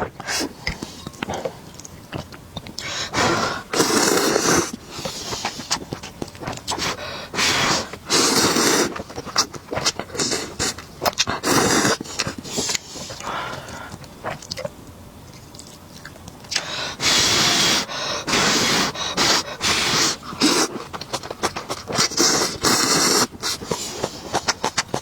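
Slurping of instant noodles in repeated loud slurps, with chewing and small clicks in between.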